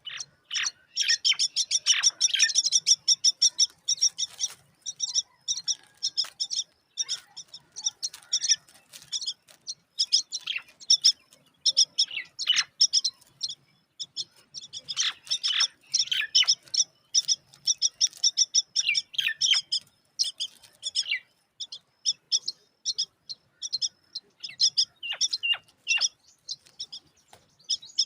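Mynas at the nest chirping in long runs of short, high notes, broken by a few brief pauses.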